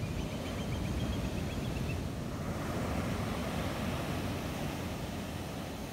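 Ocean surf breaking and washing up a sand beach, a steady rush with a deep rumble and wind noise on the microphone.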